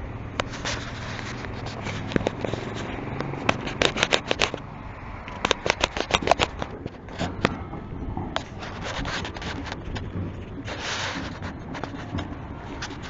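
Clicks, scrapes and rustles of a handheld camera being handled and swung about. The clicks come in two dense clusters about four and six seconds in, over a low background of street traffic.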